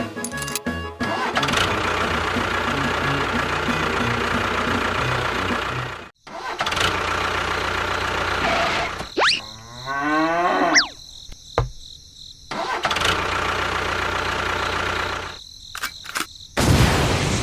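A vehicle engine running steadily, cut off abruptly several times as the footage is edited, with a falling whistle-like sound about ten seconds in.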